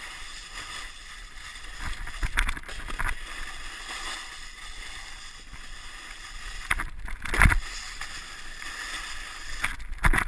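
Snowboard sliding and carving down hard, icy snow: a steady scraping hiss of the board's edges, with louder scrapes about two and a half seconds in and about seven and a half seconds in as the edge bites into the ice.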